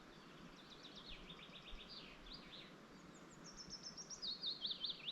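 A songbird singing faintly: two quick phrases of high repeated notes, the second stepping down in pitch toward the end.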